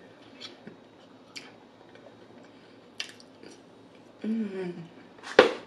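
Eating from a paper cup with a plastic spoon: small spoon clicks and soft chewing. About four seconds in there is a short hum that falls in pitch, then a sharp click near the end, the loudest sound.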